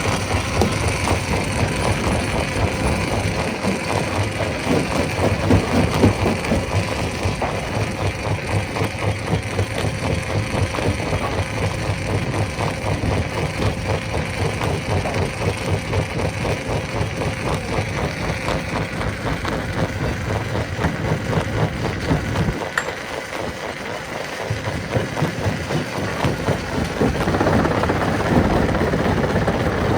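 Stone crusher machine running, its engine and working parts making a steady, loud mechanical noise with a fast, dense rattle of rock being broken. The deep part of the noise drops away for a couple of seconds past the two-thirds mark, then the machine grows louder again near the end.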